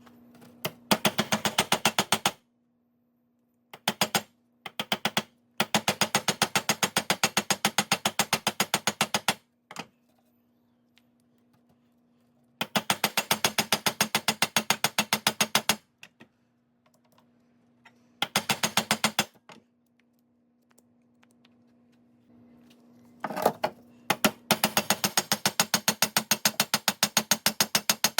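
Rapid, even mechanical clicking in several runs of one to three seconds, about a dozen clicks a second, from a ratcheting tool being worked, with a faint steady hum underneath.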